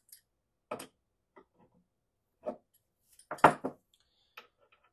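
A few short metallic clicks and knocks from hands working a reloading die in a single-stage press as the die's locking ring is locked down. A cluster of knocks about three and a half seconds in holds the loudest one.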